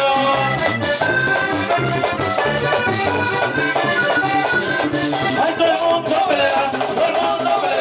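Live vallenato band playing: an accordion leads a quick melody over guitars, congas and a steady shaken percussion rhythm.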